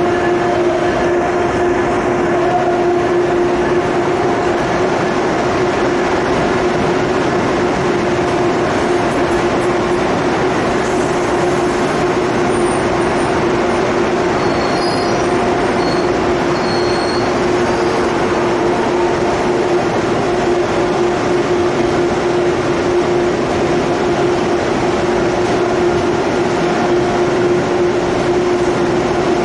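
Amtrak Northeast Regional stainless-steel passenger cars rolling past on the platform track: a steady rumble of wheels on rail with a constant droning tone, and a few short high-pitched squeaks about halfway through.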